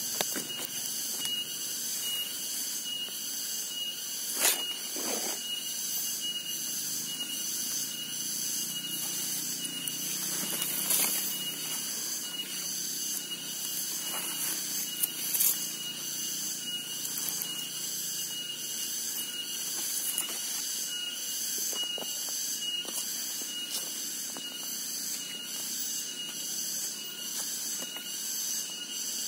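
Chorus of forest insects: a high, steady buzz that pulses evenly about twice a second over a thin continuous whine. A few short knocks and rustles come through it, about four seconds in and again around eleven and fifteen seconds.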